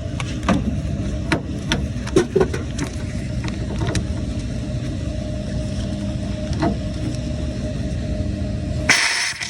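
Kairak refrigerated table-top unit running with a steady low rumble and a constant hum, with scattered clicks and taps. The rumble stops abruptly near the end.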